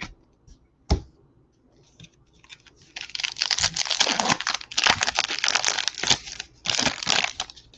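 A foil trading-card pack wrapper being torn open and crinkled by hand, in a dense, uneven crackle with short pauses. There is a single sharp knock about a second in.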